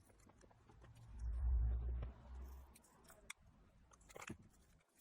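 Small clicks and taps of phone parts being handled on a workbench, with a low rumble of handling or a bump about a second in.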